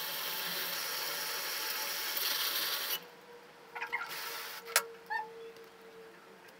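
A steady, hissing rasp from the motorcycle chain being cleaned, with a toothbrush scrubbing or a cleaner being sprayed; it stops abruptly about three seconds in. Then come a few light clicks and one sharp knock.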